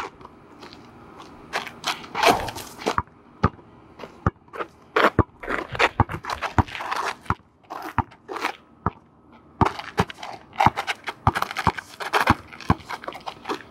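A basketball dribbled on an asphalt court: many sharp bounces at uneven spacing, with sneakers scuffing and scraping on the asphalt between them.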